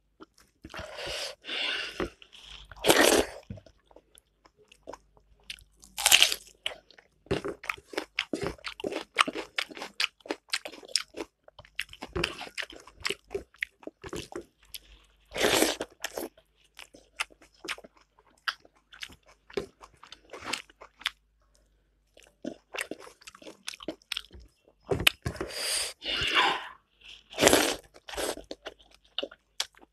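Close-miked eating by hand of rice and chicken curry: mouth-full chewing and lip sounds with many small clicks, and several louder crunchy bites a few seconds apart.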